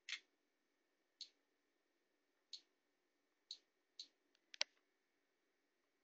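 Typing clicks on the tablet's on-screen keyboard while a password is entered: about seven short, sharp clicks at uneven intervals, the loudest a quick pair near the end.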